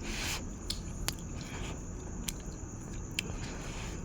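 A person chewing a mouthful of food close to the microphone, with scattered small wet clicks and smacks of the mouth.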